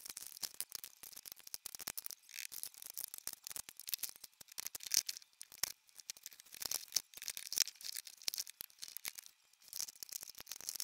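Makeup palettes and small compacts being shuffled and stacked by hand in a plastic drawer: a steady run of light clicks, taps and scrapes as the cases knock and slide against each other.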